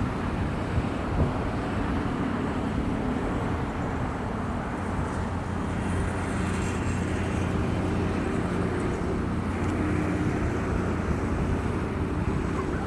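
A vehicle engine running steadily with a low hum and road noise, with a brief high hiss about halfway through.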